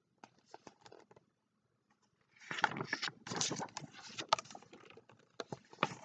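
A page of a large hardcover picture book being turned close to the microphone: a few faint ticks, then paper rustling and crackling from about two and a half seconds in.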